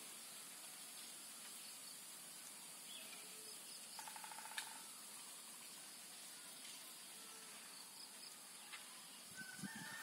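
Faint rural morning ambience: distant birds calling over a steady high hiss, with a short rapid trilling call about four seconds in and a few soft low thumps near the end.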